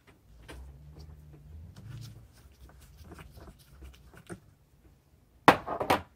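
Hands working a clear siphon hose in a plastic gas can: faint rubbing and small clicks. Near the end comes a loud clatter of a few quick knocks as the hose and its plastic nozzle are pulled out and set down on the table.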